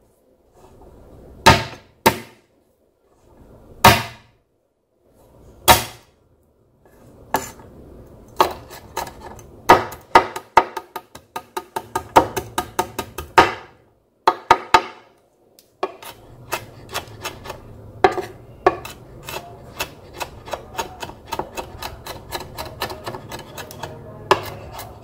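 Chef's knife on a wooden cutting board: a handful of separate hard whacks as garlic and chilli are crushed under the flat of the blade, then from about eight seconds in, quick rhythmic chopping as they are minced, with a brief pause in the middle.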